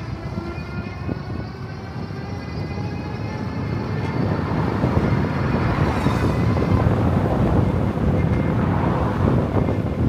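Wind buffeting the microphone of a bike-mounted camera while riding an e-bike, a steady low rushing that grows louder about halfway through.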